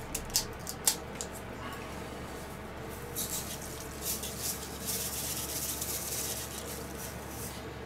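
Salt sprinkled from a glass spice jar into a stew pot: a soft, dry hiss from about three seconds in until near the end, after a few light clicks in the first second.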